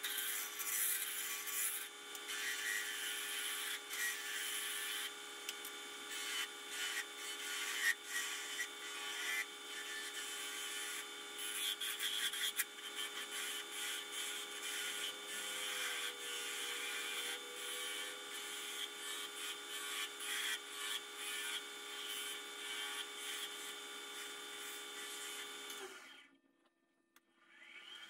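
Wood lathe spinning a small spindle while a hand-held turning chisel cuts it: a steady motor hum under a rough scraping hiss that swells and fades as the tool is worked. Everything cuts off suddenly about two seconds before the end.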